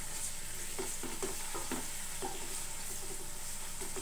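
Sliced onions sizzling in hot oil in a metal pot, early in frying with the onions still pale, stirred with a wooden spatula that scrapes through them in short strokes about every half second.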